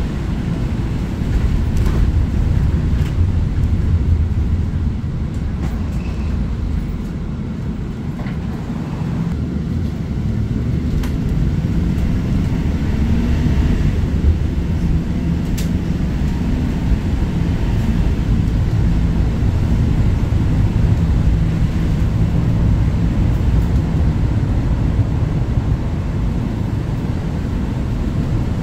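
Cabin noise of a Chevrolet 4500 ARBOC SOF 27 shuttle bus on the move: a steady low engine-and-road rumble, with a few faint clicks and rattles.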